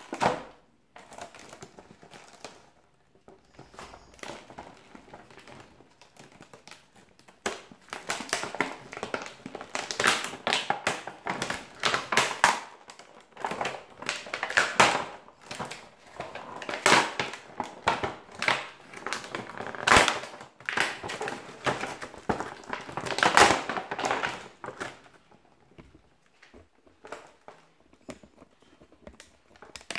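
Clear rigid plastic blister pack crackling and clicking irregularly as it is handled and turned over, busiest through the middle and sparser near the start and end.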